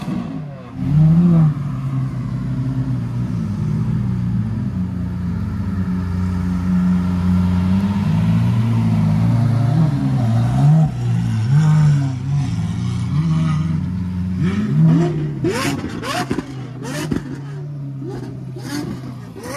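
Lamborghini Aventador's naturally aspirated V12 through an aftermarket exhaust, idling with repeated throttle blips that rise and fall. About fifteen seconds in the engine note drops away, and a few sharp cracks are heard.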